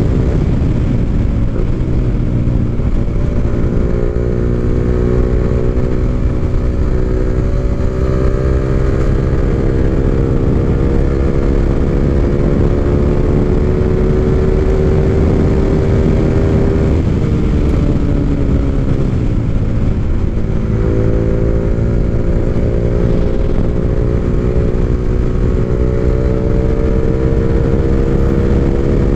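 Underbone motorcycle engine running under way, its pitch dropping once early, then climbing slowly as the bike gathers speed. It falls away steeply a little past halfway as the bike slows, then climbs again. A steady low wind rumble sits underneath.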